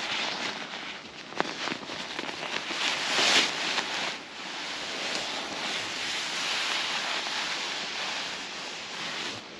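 Nylon-shelled insulated quilt being pulled out of its stuff sack and shaken loose, the slick fabric rustling and crinkling, loudest about three seconds in.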